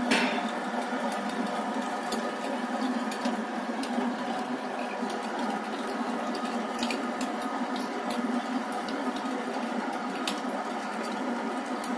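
SQ100F electric pipe threading machine running, its die head cutting a thread on the pipe: a steady motor-and-gearbox hum with scattered sharp ticks.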